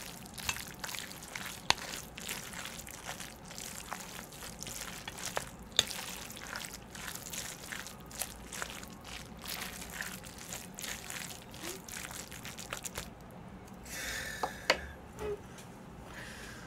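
Thick, sticky Chapagetti (instant jjajang noodles) being mixed through their sauce with chopsticks: wet squelching with many small, quick clicks. About two-thirds of the way through it changes to a brighter scraping sound for a second or so.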